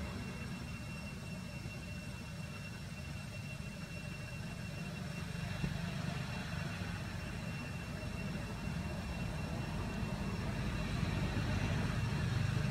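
A steady low rumble with a faint steady high whine over it, growing a little louder near the end.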